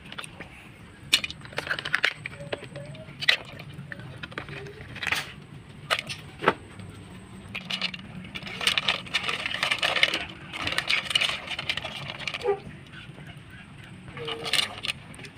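Metal tongs clinking and knocking against the sides of an aluminium stockpot, a few sharp clicks at a time, with the broth sloshing and splashing for several seconds past the middle as it is stirred.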